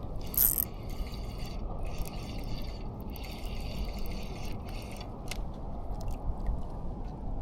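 A fishing reel being cranked in four short spells, a brief one about half a second in, then three of about a second each, over a steady low rumble.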